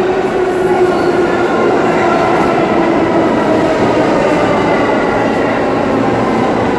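R46 subway train running past a station platform: a loud, steady rumble and rattle of steel wheels on rail, with a motor whine that slowly falls in pitch.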